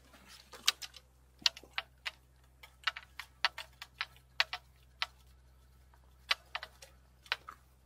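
A string of sharp, irregular clicks and ticks, some in quick pairs and triplets, from a spinning rod and reel being handled.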